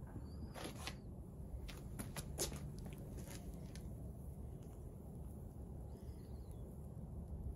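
Propane crucible furnace burner running with a steady low rush. Over it come a few sharp clicks and scrapes of steel tongs against the crucible in the first few seconds, then it settles to the burner alone.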